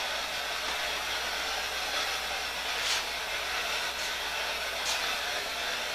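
Steady hiss of background noise, with two faint brief sounds about three and five seconds in.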